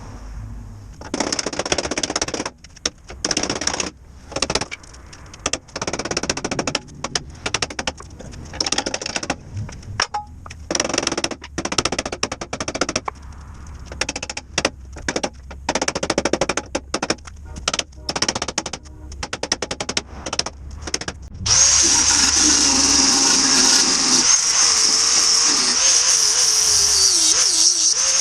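A hand-held power tool run in many short bursts, trigger on and off. About three quarters of the way through it is held on continuously and louder, its pitch wavering as the load changes.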